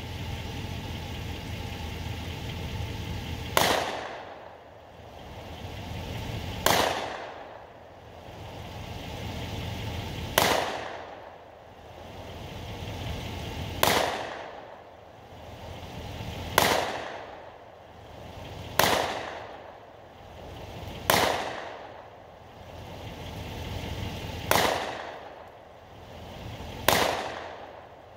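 .40 S&W pistol fired nine times in slow, aimed shots spaced about two to four seconds apart, each a sharp bang that dies away quickly.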